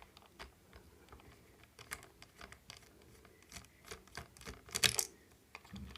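Small clicks and taps of a screwdriver and plastic parts being handled as a screw is taken out of a plastic phone handset and the parts are pulled apart, with a louder cluster of clicks near the end.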